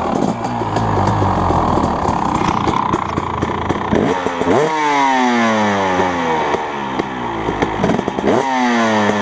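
2017 Husqvarna TC250 two-stroke single running through an FMF expansion chamber and Pro Circuit R304 shorty silencer: idling and crackling, then blipped twice with the throttle, the revs shooting up and falling back each time.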